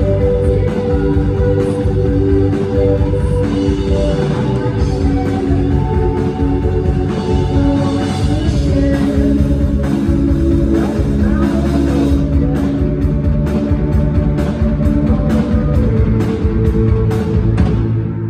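Live indie rock band playing loud on electric guitars, bass and drum kit through a venue PA, recorded from the audience.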